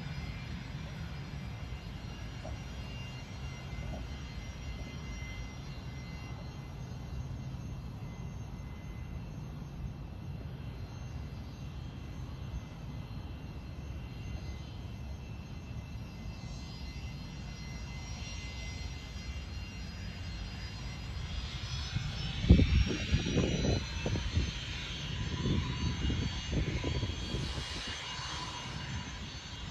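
Distant jet airliner engines running with a steady whine over a low rumble; past the middle the whine rises in pitch and grows louder as the engines spool up. From about two-thirds of the way through, wind buffets the microphone in low gusts.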